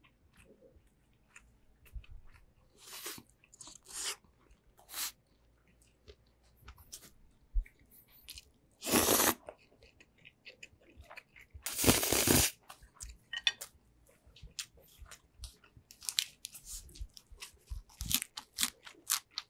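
Close-miked eating: chewing and crunching, with two loud slurps of spicy cold noodles about nine and twelve seconds in.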